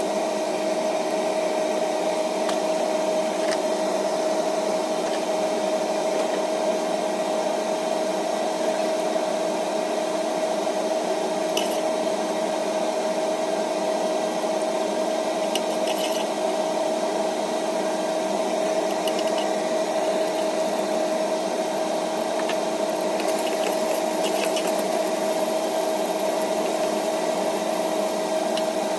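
Steady mechanical hum with one constant droning pitch, unchanging in level, with a few faint ticks now and then.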